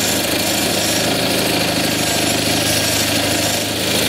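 20 hp Kohler Magnum opposed-twin engine of a Simplicity Sunstar garden tractor running steadily at a little throttle while the tractor drives forward, heard from the driver's seat.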